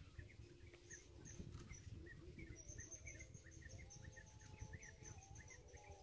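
Faint outdoor ambience: low wind rumble on the microphone under many short chirps from small birds, with a rapid high trill joining about two and a half seconds in.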